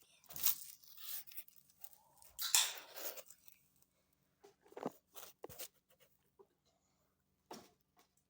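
Kittens scrambling and scratching on a box during play: short bursts of rustling and scraping, the longest about two and a half seconds in, then a few light knocks.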